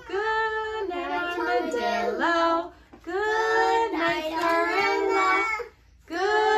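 Young children singing in high, drawn-out notes, in three phrases with short breaks about three seconds in and near the end.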